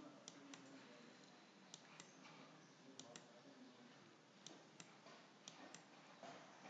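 Faint clicks of a computer mouse button, pressed and released in pairs, about five pairs spaced a second or so apart, one pair for each handwritten stroke drawn on screen; otherwise near silence.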